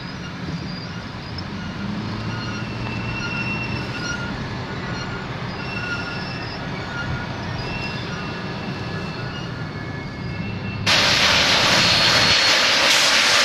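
Union Pacific 844's passenger train rolling past with a low rumble and faint thin squeals from the wheels. About eleven seconds in, the sound switches abruptly to a loud, steady hiss of steam from the standing 4-8-4 steam locomotive.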